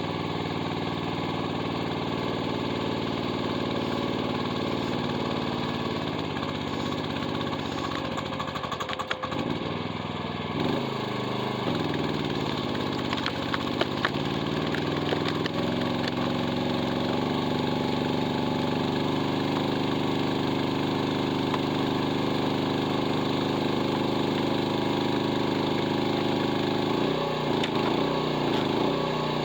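Mini excavator engine running steadily. About a third of the way in its pitch sags and recovers over a few seconds as it lugs under hydraulic load working the wood splitter, with scattered sharp cracks and clicks around then.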